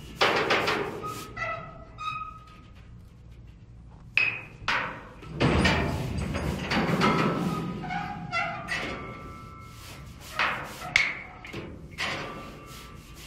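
A roll-off dumpster played as a percussion instrument: irregular mallet strikes and knocks on its walls, several ringing briefly with a metallic ping. About five seconds in comes a longer stretch of scraping.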